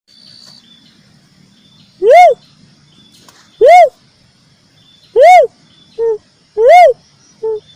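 Lure call of the uncal (red cuckoo-dove): single loud hooting notes that rise and fall in pitch, repeated about every one and a half seconds. Two shorter, lower notes come in between the last ones.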